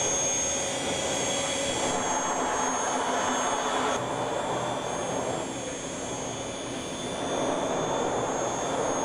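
Automated clay-milling machine running, a steady mechanical hiss with a high whine on top. About four seconds in the whine weakens while the steady hiss and hum go on.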